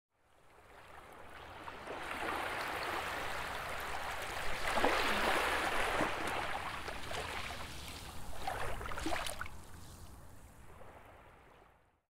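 A rushing, water-like noise, like surf, that swells up from silence, peaks with splashy crackles about halfway, crackles again later, then fades away to nothing.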